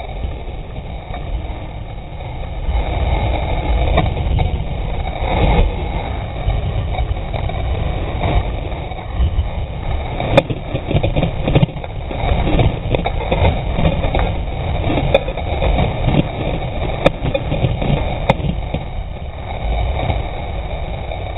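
Dog sled running over a packed snow trail: a steady rumbling scrape of the runners with the sled rattling, and a few sharp knocks in the second half.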